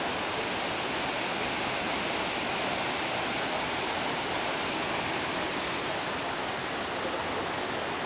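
Waterfall cascading over rock into a pool: a steady, even rush of falling water with no break.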